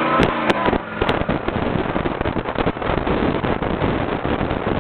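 Jeep jolting over rough off-road ground: a dense, irregular run of knocks and rattles, with a few sharp clicks in the first second.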